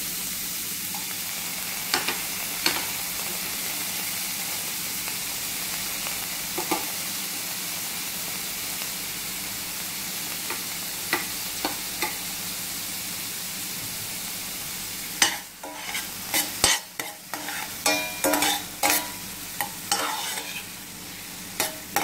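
Chopped onion and garlic sizzling steadily in sunflower oil in a stainless steel pan, softening, with an occasional tap of a spoon. About fifteen seconds in the sizzle quietens and a metal spoon scrapes and clacks against the pan again and again as the onions are stirred.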